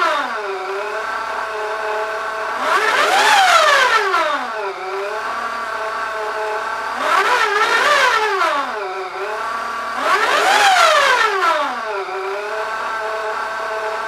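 Supercharged Corrado G60 1.8 L 8-valve engine with a Lysholm twin-screw supercharger, in a VW Golf Mk2 with a sport catback exhaust, revved three times in the stall, each rev rising and falling back to a steady idle. The engine is not yet fully tuned.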